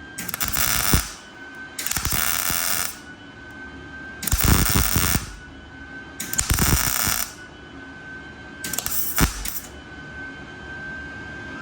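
Welding on sheet metal: five short welding bursts of about a second each, with pauses between, as patches are tacked on. A faint steady high whine runs underneath.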